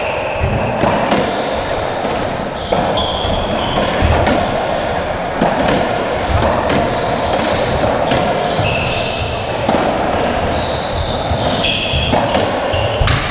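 Racketball rally on a squash court: the ball struck by racquets and smacking off the walls and floor in a run of sharp, irregular impacts. Short high shoe squeaks on the wooden floor come between the hits.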